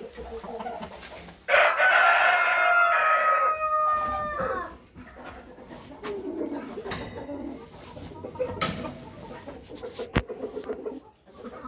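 A rooster crows once, loudly, starting about a second and a half in, lasting about three seconds and dropping in pitch at the end. Chickens cluck more softly afterwards, with one sharp click near the end.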